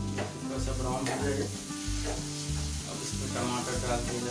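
Onion and spice masala sizzling in a kadai while a wooden spatula stirs it in repeated scraping strokes, with background music underneath.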